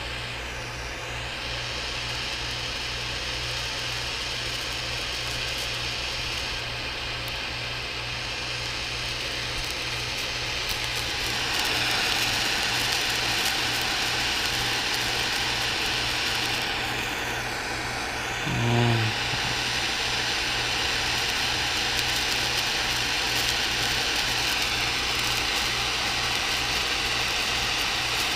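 Gas soldering torch burning steadily with a low rumble and a broad hiss, the hiss growing louder about twelve seconds in as the flame is opened up on the copper radiator pipe. A short low hum comes through near nineteen seconds.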